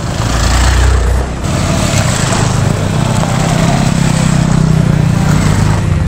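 Motorcycle engines running as off-road bikes ride along a dirt trail. The engine note dips briefly about a second in, then holds fairly steady.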